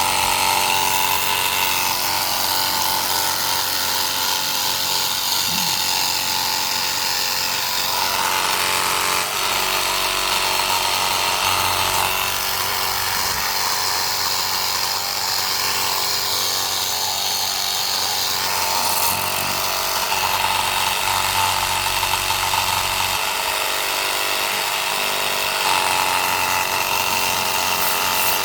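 Battery-powered cordless pressure washer running steadily on its strongest setting, level 3: the electric pump motor's whine under the hiss of the water jet, with small shifts in tone as the spray is moved.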